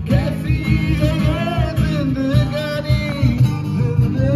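Music: a singing voice over guitar and a steady beat.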